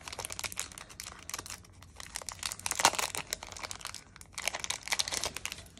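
Clear plastic wrapper crinkling and crackling as it is pulled off a small paper sticker box by hand, with a louder crackle about three seconds in.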